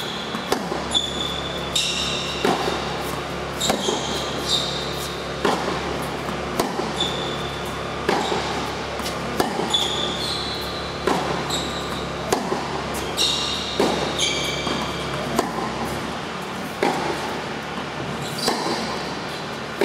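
Tennis rally on an indoor hard court: racquet strings striking the ball and the ball bouncing, a sharp hit about every second, echoing in a large hall. Short high squeaks of shoes on the court come between the hits.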